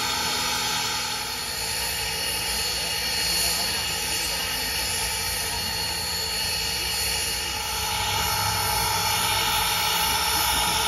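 Norfolk and Western 475, a 4-8-0 steam locomotive standing under steam, giving off a steady hiss with a continuous whine over it.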